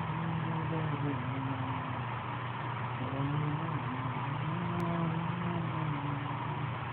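A man singing a tune wordlessly from under bedcovers, in long held notes that slide up and down in pitch, over a steady hiss.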